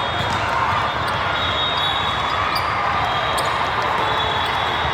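Basketball game in a gym: a ball bouncing on the court, high squeaks of sneakers, and spectators chattering in the background.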